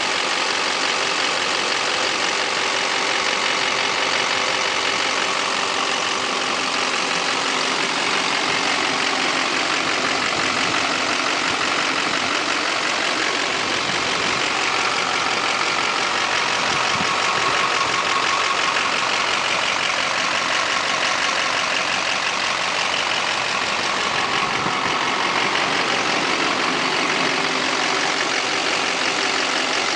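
Duramax 6.6-litre V8 turbo diesel idling steadily, heard close up under the open hood.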